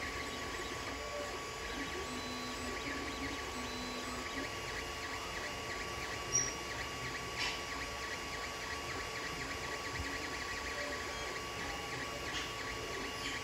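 Creality Ender 3 3D printer running mid-print: a steady whir of its fans and stepper motors, with two brief clicks about six and seven seconds in.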